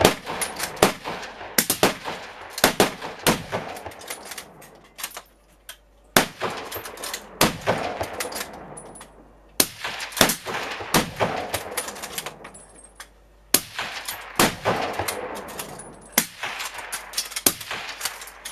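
Rapid fire from several scoped rifles: shot after shot in quick, irregular succession, each crack followed by a short echo, with a few brief lulls between strings.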